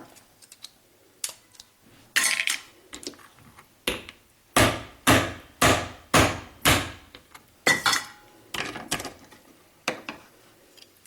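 Hard knocks on a cooked lobster's shell, struck with an improvised tool to crack it open: scattered blows, then about five in a quick run around the middle, a few with a short metallic ring.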